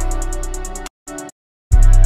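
Background music: an electronic beat with a heavy sustained bass and fast ticking hi-hats. The beat cuts out for most of a second near the middle, with one short snippet coming through, then drops back in on a bass hit.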